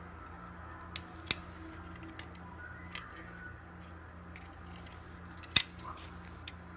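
A few scattered sharp clicks of small tools and phone parts being handled during an iPhone 6s repair, the loudest about five and a half seconds in, over a steady low hum.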